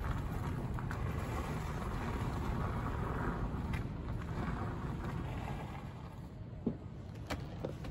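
Wind rumbling on the microphone outdoors, a steady low buffeting with a couple of faint clicks.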